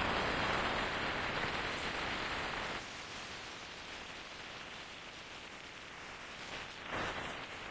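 Wind rushing over a camera microphone on a moving motorcycle: a steady hiss of wind and road noise that drops quieter about three seconds in.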